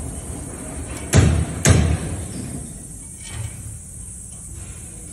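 Two dull knocks about half a second apart, over a steady low rumble.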